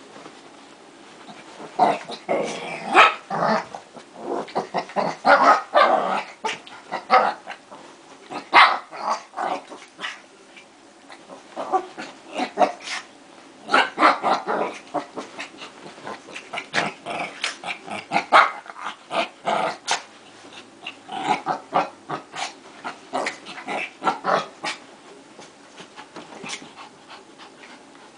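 Two small long-haired dogs growling and snarling as they wrestle, in short irregular bursts that stop and start again. The bursts begin about two seconds in and die down over the last few seconds.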